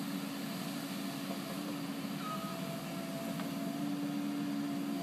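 Bobcat mini excavator's diesel engine running steadily at work. A faint steady whine joins in about a second and a half in.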